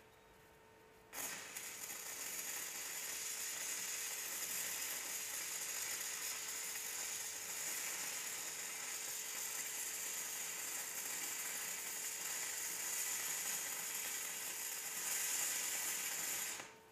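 Shielded metal arc welding with a 3/32-inch E6010 electrode on DC electrode positive: the arc strikes about a second in and burns as a steady hissing crackle for about fifteen seconds, then stops abruptly as the bead is finished. The settings are judged good.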